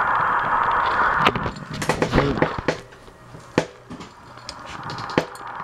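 Handling noise: a steady hiss that cuts off about a second in, then scattered clicks and knocks, the sharpest about three and a half and five seconds in.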